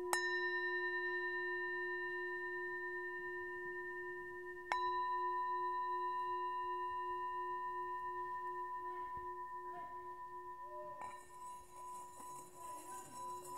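Music score: a ringing, bell-like instrument struck twice, at the start and again about five seconds in, each tone holding several steady pitches and fading slowly. A faint hiss joins the ringing after about eleven seconds.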